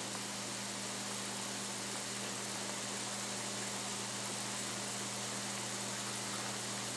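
Steady hiss with a low, even hum underneath.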